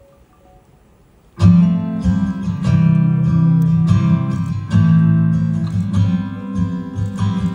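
Low room hush for about a second and a half, then the instrumental intro of a ballad starts suddenly and carries on: a song led by acoustic guitar, with sustained low notes underneath.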